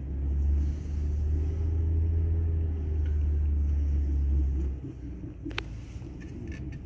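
Low rumble of a car, lasting about five seconds and stopping fairly suddenly, then a single sharp click.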